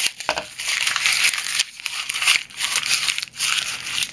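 Crinkly tearing and crunching noises in irregular bursts as a small folding knife's blade cuts and rips through material, partly cutting and partly shredding it.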